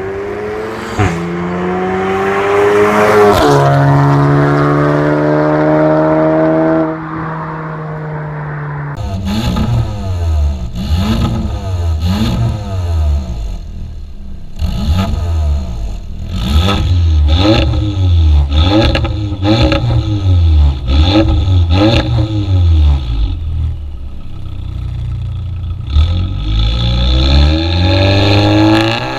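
For the first several seconds an engine climbs in pitch, then holds a steady drone. Then an Audi S3's turbocharged four-cylinder, breathing through a Fi Exhaust catless downpipe and valved cat-back muffler with the valve closed, is revved in quick repeated blips about once a second. It settles briefly, and near the end the car pulls away, accelerating.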